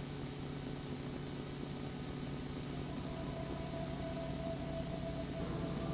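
Steady hiss over a low hum, with a faint held tone in the middle and no distinct event.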